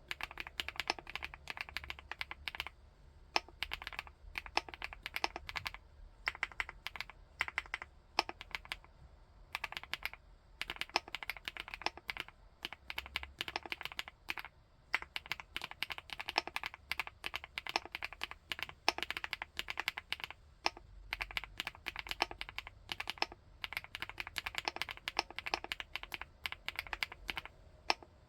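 Typing on a 75%-layout full-aluminium mechanical keyboard: fast runs of crisp keystrokes with a few short pauses between bursts.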